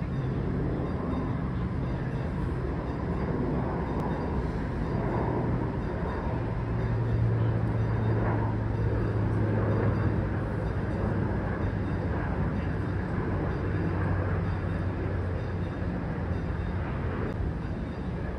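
Steady low rumble with a droning hum that is strongest for several seconds in the middle, from a cruise ship's engines and machinery heard on board while it is under way.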